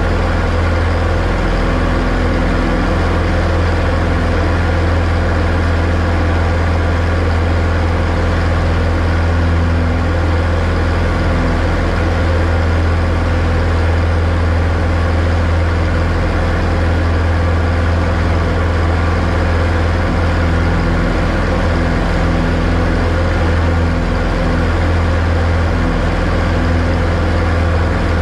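Single-engine light aircraft's engine and propeller heard inside the cabin: a loud, steady drone with a strong low hum.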